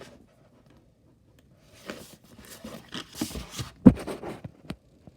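Handling noise from a Lego set's packaging and parts bags: rustling and light clicks, with one sharp knock about four seconds in.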